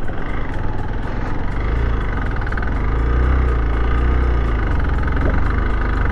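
Motorcycle running steadily while riding up a dusty dirt track, with a heavy low rumble of road and wind noise.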